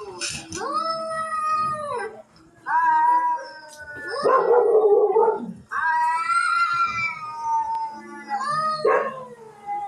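Cat fight sound effect: cats yowling in long, drawn-out, wavering wails, with a harsh, noisy cry in the middle and a short squall near the end.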